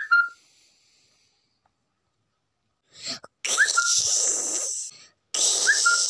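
Two breathy noise bursts from a person, one about a second and a half long and a shorter one after it, each with a short rising squeak, following a few seconds of near silence.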